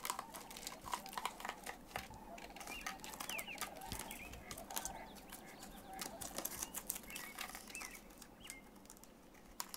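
Black bear cub's claws scratching and clicking on tree bark, with twigs and branches crackling as bears move against the tree. Irregular quiet clicks, with small birds chirping faintly in the background.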